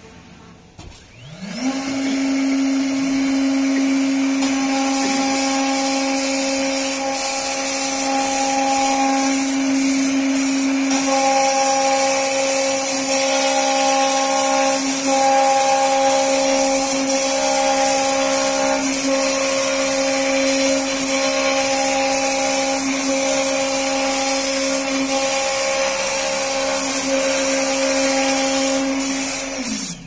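Spindle motors of a CNC door lock drilling machine spinning up with a rising whine about a second and a half in, then running steadily with a hum and a hiss while the bits cut into an MDF door board. The motors wind down with a falling whine near the end.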